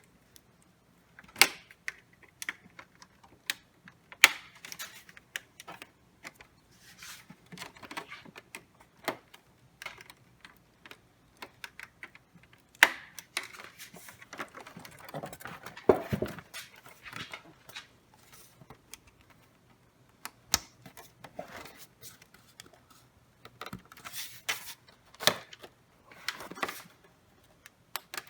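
Irregular clicks, taps and clatter of hand tools and plastic parts as an all-in-one computer's casing is worked on, with a stretch of scraping about halfway through.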